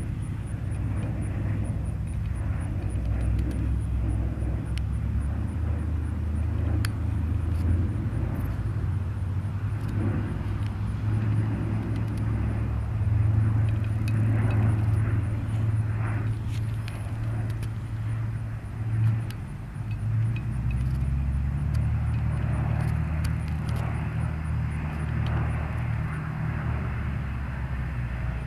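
Lockheed C-130 Hercules four-engine turboprop flying past, its propellers and engines making a low steady hum with a rushing noise above it. The hum shifts in pitch about two-thirds of the way through.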